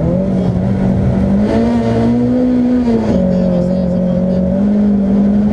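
Mercedes 190E 2.3-16V rally car's four-cylinder engine pulling hard, heard from inside the cabin. Its pitch steps up and climbs, then drops sharply about three seconds in at a gear change before rising again.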